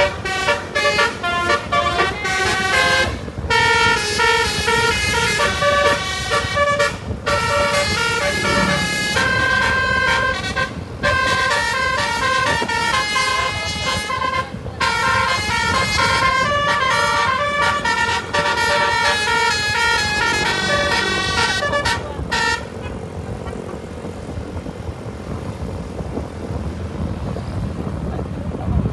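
Multi-tone telolet bus horn playing quick melodic runs of notes with short breaks, then stopping about 22 seconds in. Steady engine and road noise carries on after it.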